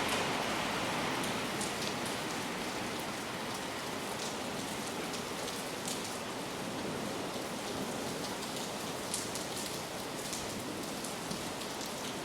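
Heavy rain falling steadily, a dense even hiss with many individual drop hits standing out as sharp ticks.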